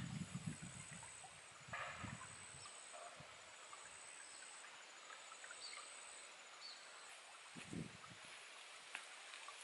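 Quiet outdoor background with a few soft thuds and a scrape as hands press and shape wet clay on a rock slab: thuds at the start and one more near the end.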